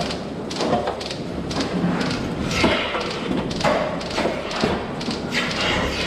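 Milking units being handled and attached to cows in a milking parlour: repeated knocks and clatter with short hissing rushes, about one a second, over a steady low hum of the milking equipment.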